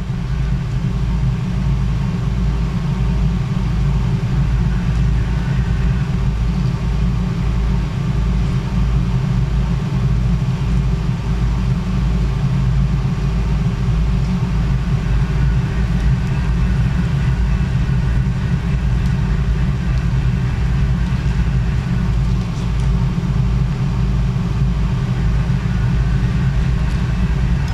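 Steady low hum with a fainter higher tone above it, unchanging throughout.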